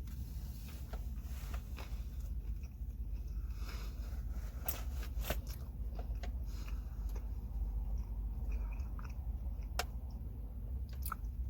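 Biting into and chewing a garlic butter steak sandwich, with scattered short wet clicks and crackles of chewing over a steady low hum.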